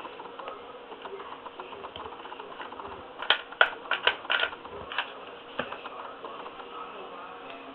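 A quick run of light clicks and taps, about half a dozen between three and four and a half seconds in, then two single clicks, from hand work on a carpet patch with a hot glue gun, over a steady faint hiss.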